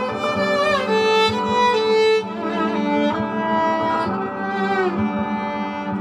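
Solo viola layered with a loop pedal into a string-ensemble texture: a held low drone under a bowed melody, with sliding notes about a second in and near the end.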